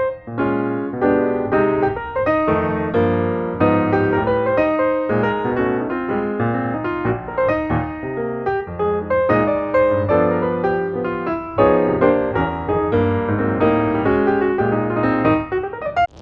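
Background music: piano or electric keyboard playing a quick run of notes.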